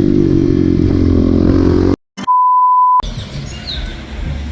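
An engine running steadily, cut off abruptly about two seconds in. A moment of silence follows, then a single steady high beep, an edited-in bleep, for just under a second, then a quieter outdoor background.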